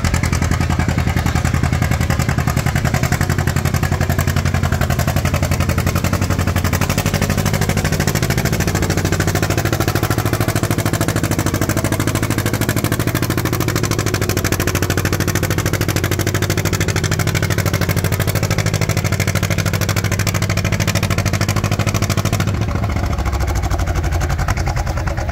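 John Deere two-cylinder tractor engine working hard under load as it pulls a weight-transfer sled, its exhaust popping in a rapid, steady beat. The sound eases off a little near the end.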